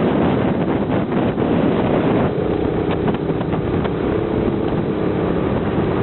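Harbor Freight Predator 212cc single-cylinder engine on a go-kart running steadily, with wind buffeting the microphone.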